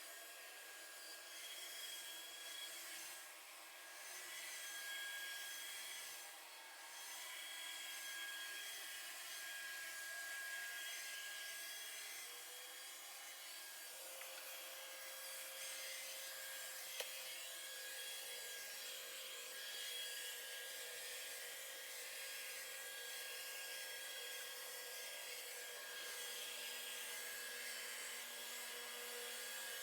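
Robot vacuum cleaner running: a steady hiss with thin high whining tones over it, and a fainter lower hum joining about halfway through.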